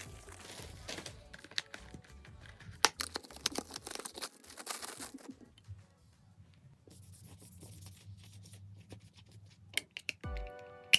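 Packaging being handled and torn open: crackling, rustling and tearing of paper or plastic wrapping, busiest in the first half and quieter after. Background music comes in near the end.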